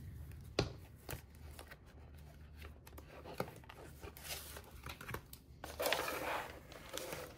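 Hands handling pens and their plastic blister packets on a wooden desk while a ring-bound notebook is brought in. There are a few light clicks and taps, then a longer plastic-and-paper rustle near the end.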